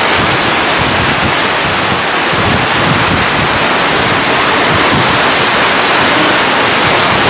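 Steady loud rushing of wind buffeting the microphone together with the sea churning below the stern of a cruise ship.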